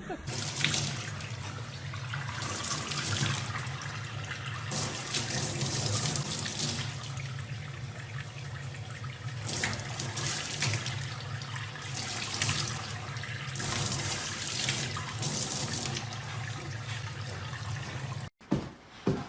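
Running water, like a tap, a steady splashing hiss that swells and eases, cutting off abruptly near the end.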